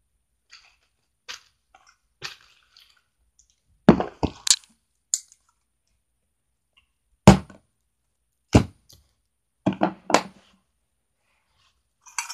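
Plastic toys and containers being handled and set down on a hard plastic surface close to the microphone: scattered clicks and sharp knocks, with louder clacks about four seconds in and again several times in the second half.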